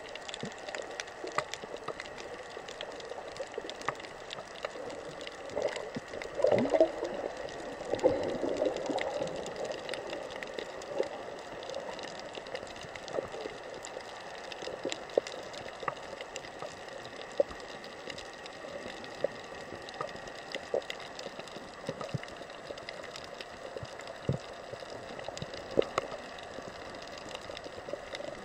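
Underwater sound picked up through a camera's sealed waterproof case: a steady, muffled water hiss with scattered sharp clicks. About six seconds in, a bubbling gurgle rises for a few seconds.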